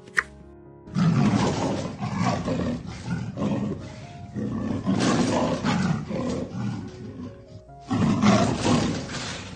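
A large wild animal roaring in rough, noisy pulses: one long run of calls, then a second burst near the end, over quiet background music.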